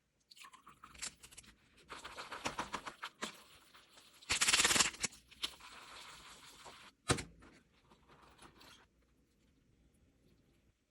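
Food-packing handling sounds: a run of crackling clicks, a louder rustling burst about four seconds in, and a single sharp click a few seconds later, then it goes quiet.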